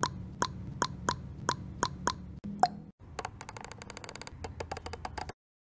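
Percussive intro sound effects: wood-block-like ticks about three a second over a low hum, a single pop, then a fast rattle of clicks that stops suddenly.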